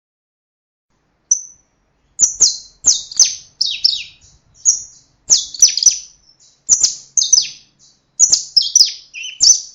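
A bird chirping: a single short high note, then series of quick high notes, each sweeping down in pitch, in clusters of two or three repeated about once a second.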